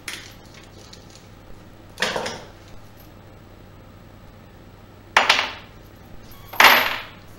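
Small metal hardware dropped into the wooden compartments of a drawer organizer, clattering three times, about two, five and six and a half seconds in, each rattle dying away within half a second; the last is the loudest.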